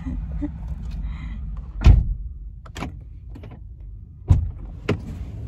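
A vehicle door thudding shut about two seconds in, heard from inside the car, followed by a few sharp clicks and knocks.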